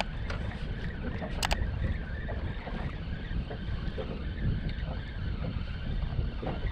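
Wind buffeting the microphone, a steady low rumble, with two sharp clicks about a second and a half apart near the start.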